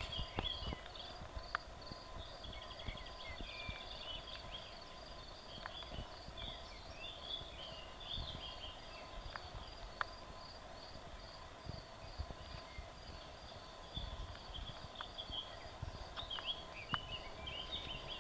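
Songbirds singing in short chirping phrases from the surrounding trees, busiest in the first half and again near the end. Underneath, irregular dull low thuds from footsteps on a grassy path and the camera being handled while walking.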